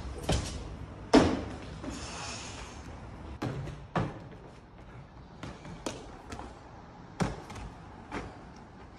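Parkour jumps and landings: shoes and hands striking concrete and brick ledges and walls in a series of sharp thuds and slaps. The loudest comes about a second in, with scuffs between.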